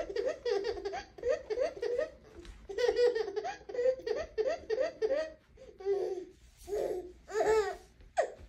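Baby laughing in rapid runs of belly laughs, then breaking into a few separate longer, higher squeals of laughter in the last few seconds.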